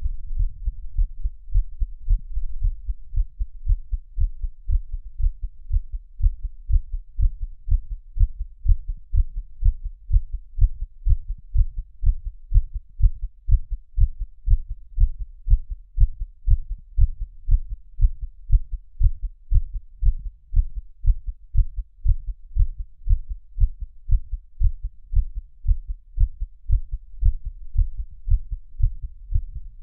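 A human heartbeat recorded up close: a steady, even run of low, dull thumps beating throughout.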